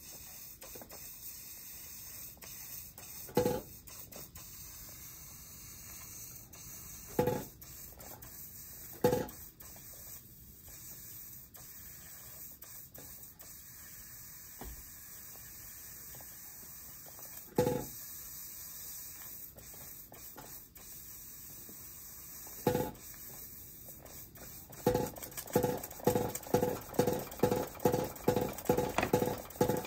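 Toy model hammer built from Märklin metal construction-set parts striking with a short ringing metallic clank. A few strikes come singly, several seconds apart, then a quick even run of about a dozen, two or three a second, near the end. A steady hiss lies beneath.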